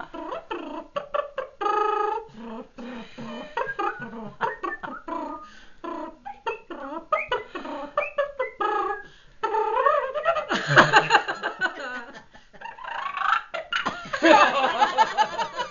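A woman imitating a trumpet with her mouth, making voiced toots and buzzes with a held note about two seconds in, amid laughter.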